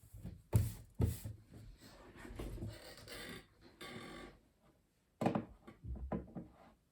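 Uneven keystrokes on a custom mechanical keyboard: single sharp clacks at irregular intervals, with a softer stretch of quicker rattling noise in between.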